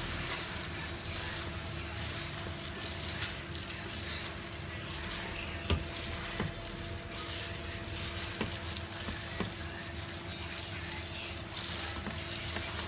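Gloved hands mixing fried tofu and vegetarian ribs with sauce in a stainless steel bowl: a steady wet, crackly rustling of plastic gloves and food, with a few light knocks against the bowl. A faint steady hum runs underneath.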